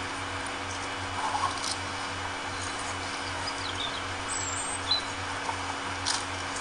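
Hushed crowd ambience: a steady hiss and low hum, with scattered faint clicks and a few short, faint high chirps around the middle.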